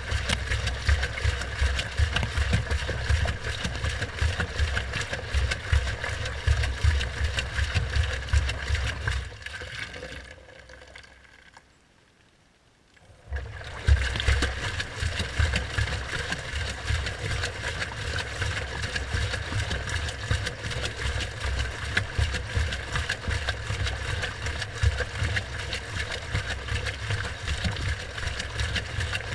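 Washing machine drum tumbling with water and suds sloshing, heard from inside the drum as a heavy pulsing rumble. About ten seconds in the drum slows and stops, leaving near silence for a few seconds. It starts turning again with a sharp knock.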